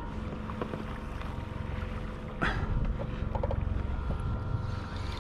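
Wind buffeting the microphone and water moving against a plastic kayak hull make a steady low rumble, with a faint steady whine beneath. One sharp knock comes about halfway through, followed by a few light clicks.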